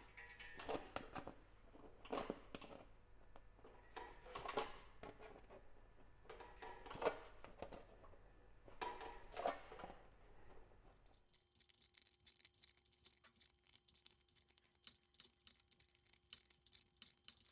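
Sheet-metal shrinker's jaws clacking on the edge of a metal disc as the edge is shrunk bite by bite: a few sharp metallic clicks one to two seconds apart, fading to near silence after about eleven seconds.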